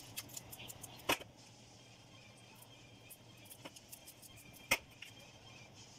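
Sparse sharp clicks of a kitchen knife against a plate while chopping spinach leaves, a few quick ones early, then two louder single clicks about a second in and near five seconds.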